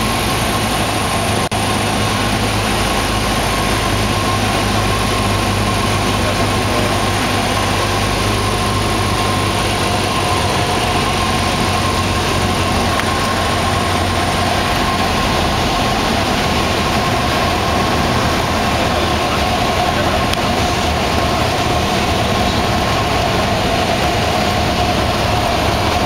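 Cessna 172's piston engine and propeller in flight, a loud, steady drone with an even pitch.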